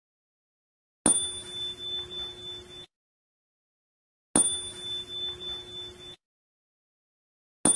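A bell-like ding sound effect, repeated three times about three seconds apart, the last near the end. Each ding starts sharply and rings on for nearly two seconds with a wavering level, then cuts off into silence.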